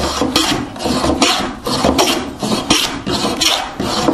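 Hand plane shaving wood in short, quick strokes, two or three a second, as the bench top is planed flush with the apron.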